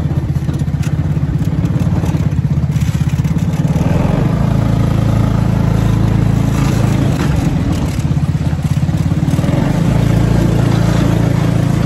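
Side-by-side ATV's engine running steadily as it drives along a rough dirt trail, heard from the driver's seat, a steady low drone with noise over it.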